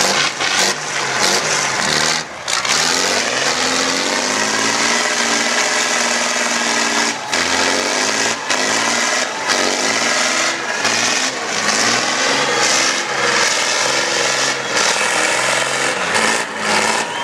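Truck engine being revved up and down over and over, its pitch rising and falling every second or two.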